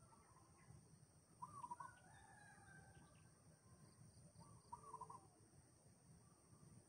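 Chicken calling twice, each a short pulsed call about three seconds apart, over faint background bird notes.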